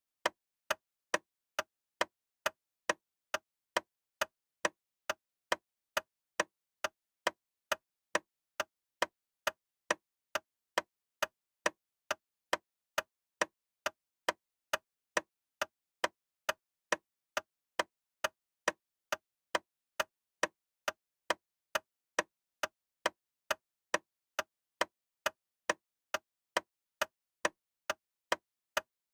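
Sharp, evenly spaced ticking, about two ticks a second, with dead silence between ticks.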